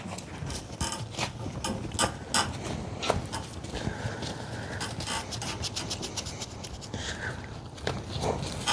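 Hand tools and small metal engine parts being handled: scattered clicks, light knocks and scraping, with a brief squeak about four seconds in.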